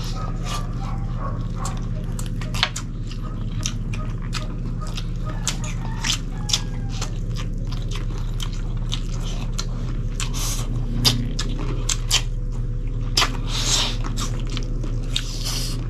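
Close-up eating sounds of people eating grilled chicken with their hands: many quick wet clicks and smacks of biting and chewing meat. A steady low hum runs underneath.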